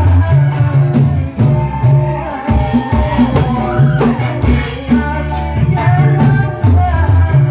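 Hadrah music: a group of hand-struck frame drums (rebana) beating a steady, driving rhythm with deep strokes, under a lead singer's devotional chant on a microphone.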